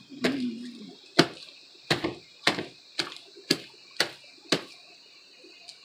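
A batch of homemade slime being slapped and worked by hand: a string of sharp slaps, about two a second, stopping shortly before the five-second mark.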